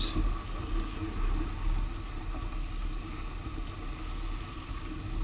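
Kayak hull moving through lily pads, heard through the bow-mounted camera as a steady low rumble with a faint hum.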